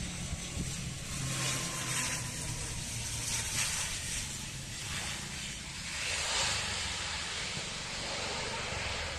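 Airbus (CASA) C-295 military transport's twin Pratt & Whitney PW127 turboprops and propellers running with a steady low hum as it lands and rolls out on the runway. Wind rushes on the microphone over it, swelling and fading.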